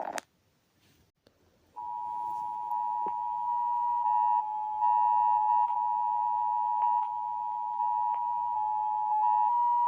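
A short silence, then about two seconds in an emergency alert attention tone starts: a steady two-note electronic tone near 1 kHz that holds unbroken, with a few faint clicks over it.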